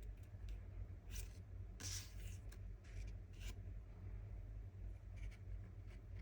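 Pokémon trading cards sliding and rubbing against one another as they are handled: several short, faint papery swishes, the longest about two seconds in, over a low steady hum.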